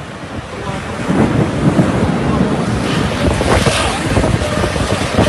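Thunder rolling in a rainstorm, a deep rumble that swells about a second in and stays loud, with rain and wind buffeting the microphone.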